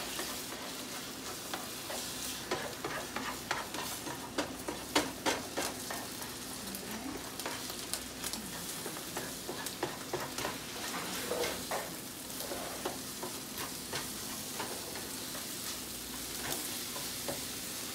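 Scrambled eggs and onion sizzling in a frying pan, stirred and scraped by a spatula, with frequent light clicks and scrapes of the spatula against the pan over the steady frying hiss.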